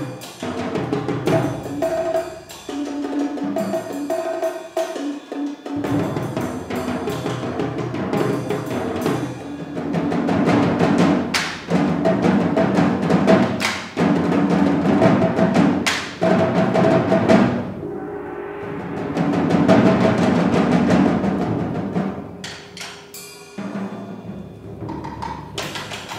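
A percussion ensemble plays a drum piece on snare drums, tom-toms and concert bass drum, with dense, rhythmic strikes and some ringing drum pitches. The playing eases briefly past the middle, then builds again.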